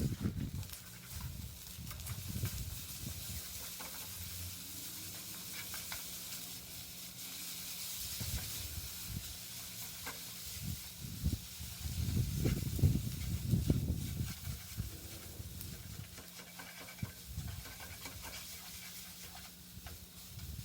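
Yakisoba frying in a pan, a steady sizzling hiss as it is stirred, with a louder stretch of stirring and clatter about two-thirds of the way through.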